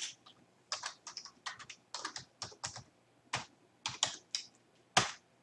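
Computer keyboard being typed on: a run of irregular, quick keystrokes as a parameter name is entered, with one louder key strike near the end.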